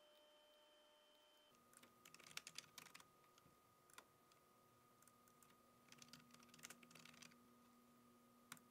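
Faint clicking of a computer keyboard and mouse: two short bursts of typing, with a few single clicks between them and near the end.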